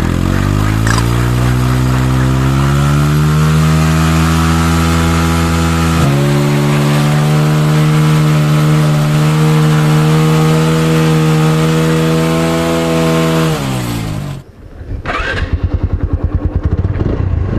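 TVS Apache RTR 160 motorcycle engine revving: the pitch climbs over the first few seconds, is held high and steady with a step about six seconds in, and drops away about fourteen seconds in. It then settles into a low, even pulsing idle.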